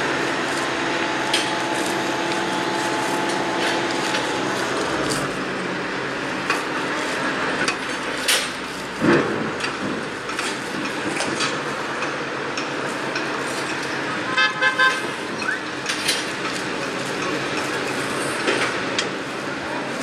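Construction site din: steady noise of machinery and traffic, with a machine hum in the first few seconds that fades out. Sharp knocks and clanks are scattered throughout, and a short pulsing horn toot sounds about fourteen seconds in.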